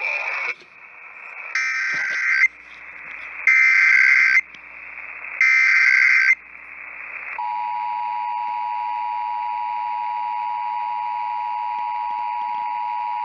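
Emergency Alert System SAME header: three bursts of data tones about a second long, roughly a second apart, received over broadcast radio with hiss between them. About seven seconds in, the steady two-tone EAS attention signal begins and holds, marking the start of an EAS test.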